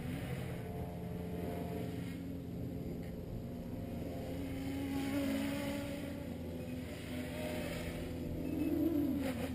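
Armattan 355 tricopter's three 2600kv brushless motors and propellers whining in flight, the pitch rising and falling with the throttle. The loudest, highest surge comes near the end as the motors are powered up.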